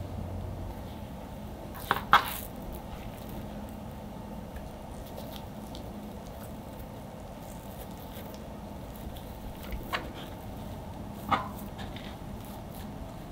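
Soft handling sounds as hands lay mango slices on whipped cream and fold and roll thin crepes on a countertop: a few soft taps and squishes, the loudest about two seconds in and a couple more near the end, over a steady low room hum.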